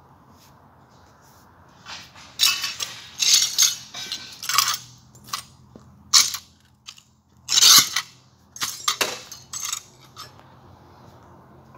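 Broken glass clinking and crunching in a string of irregular sharp bursts, the loudest about two-thirds of the way through.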